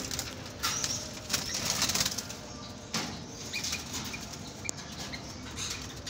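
Doves flapping their wings in fits inside a wire cage, startled as a hand reaches in to catch them.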